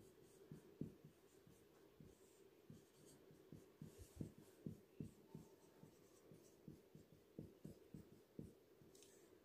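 Faint strokes of a whiteboard marker writing on a whiteboard: a quick, irregular run of short scratches and taps as words are written out.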